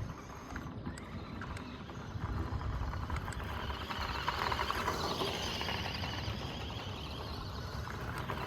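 1:14-scale RC car driving on dirt: its motor and tyres give a brighter whirring noise that swells and rises in pitch about halfway through, then falls away, over a steady low rumble.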